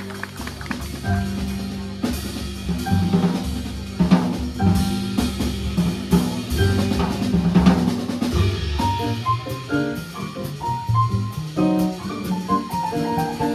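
Live jazz band playing, with the drum kit to the fore: snare, bass drum and cymbal strokes over a walking low bass line and electric piano. The piano plays a run of short higher notes from about the middle on.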